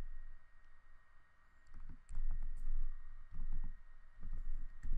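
Scattered soft clicks and low thumps of keys or buttons being pressed, mostly after about two seconds in, as a division is keyed into a calculator to get the answer.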